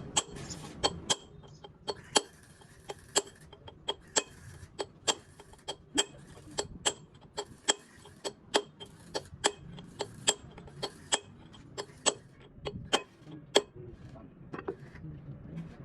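Hammer striking metal in a steady run of sharp, ringing taps, about two a second, that stop near the end.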